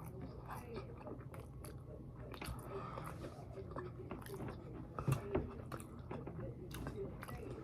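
A person chewing and biting into chicken wings: a run of small irregular clicks, with a louder couple about five seconds in.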